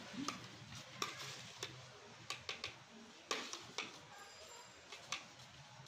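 Slotted metal spoon clinking and scraping against the side of a large metal cooking pot (degh) as steamed biryani rice is turned over when the dum is opened: irregular light knocks, several close together in the middle.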